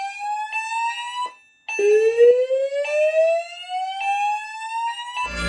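Fire alarm speaker sounding a slow rising whoop tone that sweeps up over about three seconds, breaks off briefly and starts again, while fire alarm chimes strike repeatedly over it. Christmas music comes in just before the end.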